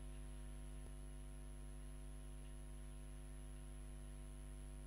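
Steady low electrical mains hum with a faint hiss underneath, and a faint click about a second in.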